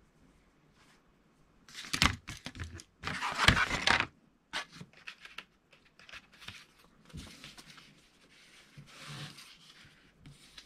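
Paper handling: a few sharp rustles, then a loud rough ripping sound of about a second, like a paper sheet being torn or peeled. After it come a few light clicks and softer paper rustling on the cutting mat.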